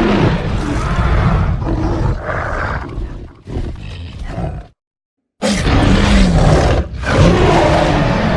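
Custom kaiju roar sound effect layered from Godzilla roars, tiger sounds and film dinosaur roars. A long loud roar trails off, then after a break of under a second a second loud roar starts abruptly.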